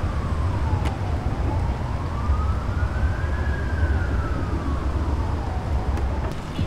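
An emergency vehicle siren wailing, its single tone slowly falling and rising about once every five seconds, over a steady low rumble.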